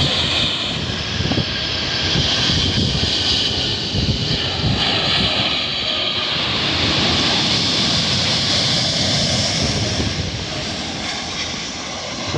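Jet airliners' turbofan engines heard across the airfield as the aircraft roll on the runway: a steady rush, with a high whine that swells for several seconds about halfway through.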